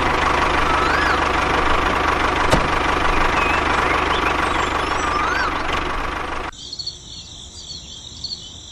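A DIY mini tractor's motor running with a steady hum. It cuts off abruptly about six and a half seconds in, leaving faint high chirping.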